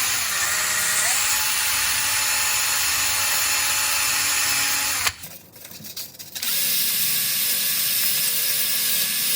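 Power drill spinning a Minimoog's steel bell crank bar while sandpaper is held against it, sanding off rust. A steady motor whine runs over a scratchy sanding hiss, with the pitch sagging briefly under load near the start. It stops about five seconds in and starts again about a second and a half later.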